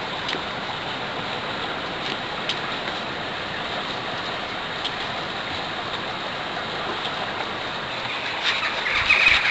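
Steady rushing outdoor background noise with a few faint clicks; short, higher-pitched sounds come in near the end.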